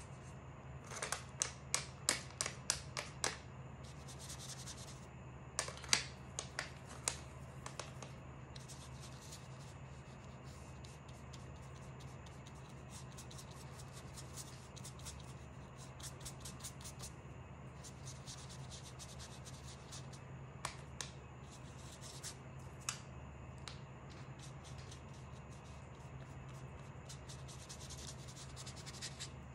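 Paintbrush stroking and dabbing on watercolour paper: a series of short, scratchy brushing sounds, in quick runs near the start and again around six to eight seconds in, then sparser. A faint steady low hum runs underneath.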